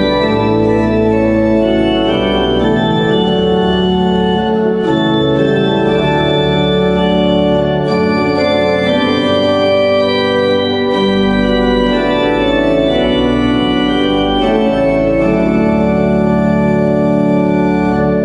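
Organ music: full sustained chords that change every second or two over low held bass notes.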